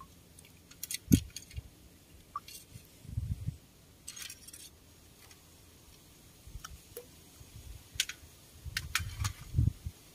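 Scattered light clicks and taps of fishing tackle being handled, with a few dull low thumps about one, three and nine seconds in.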